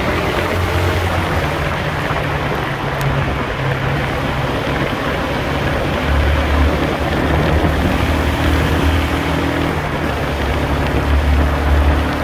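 Yamaha R15 V2's single-cylinder engine running at a steady cruise, with a constant rush of wind and tyre noise echoing off the walls of a road tunnel. The engine note swells louder about six seconds in and again near the end.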